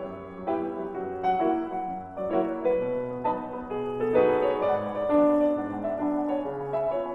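Solo piano music playing a gentle melody.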